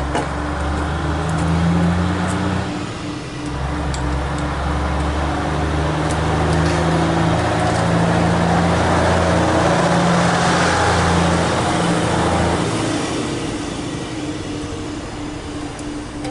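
Mercedes-Benz 250S (W108) straight-six engine running, its sound rising and falling in pitch and loudness. It is louder and higher through the middle, then settles lower near the end.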